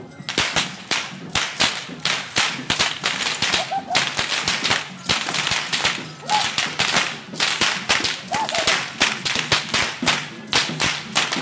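Many whips cracking one after another in an irregular volley, about three or four sharp cracks a second, as tlacololero dancers lash their long rope whips (chirriones).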